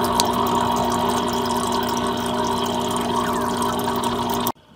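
Aquarium pump running with a steady hum and water noise; it cuts off suddenly near the end.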